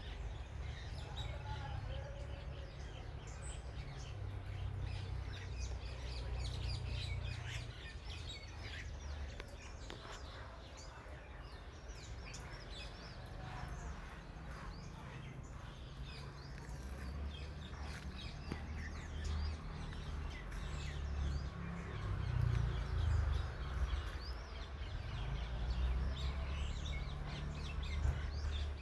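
Many small birds chirping and calling, with quick overlapping chirps throughout, over a steady low rumble.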